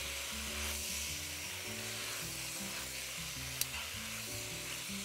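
Penne, cherry tomatoes and olives sizzling in a pot while a spatula tosses them, with a single light click about three and a half seconds in. Soft background music plays underneath.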